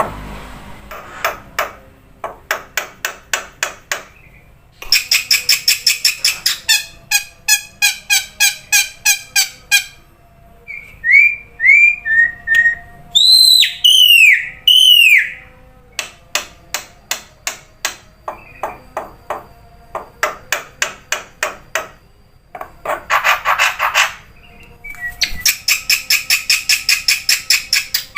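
Black-winged myna (jalak putih) singing: long runs of rapid, evenly repeated chattering notes, broken in the middle by a handful of loud arching whistles.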